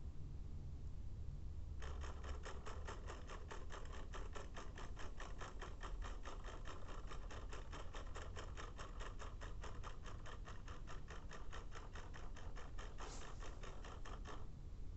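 Quartz wall clock's stepping motor ticking rapidly, about five sharp clicks a second, as an ESP32 microcontroller drives the second hand backwards. The ticking starts about two seconds in and stops just before the end.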